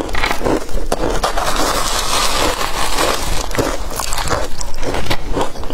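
Crunching of a mouthful of shaved ice being bitten and chewed: a few separate crunches, then a dense continuous crushing crunch through the middle, then separate crunches again near the end.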